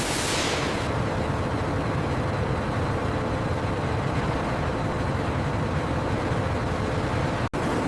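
Steady low rumble of heavy factory machinery with a faint steady hum. A hiss fades out in the first second, and the sound cuts out for an instant near the end.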